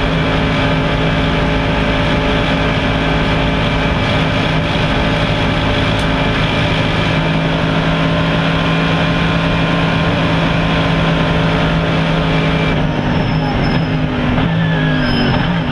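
Mercedes-Benz SLS AMG GT3's 6.2-litre V8 heard from inside the cockpit, held flat out at steady high revs. About thirteen seconds in the throttle closes and the revs fall in several steps as the car downshifts under braking.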